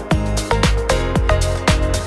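Upbeat electronic dance music with a steady, punchy beat.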